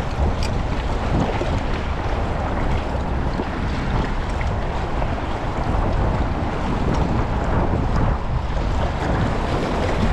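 Steady wind buffeting the microphone over open water, with lapping water beneath it.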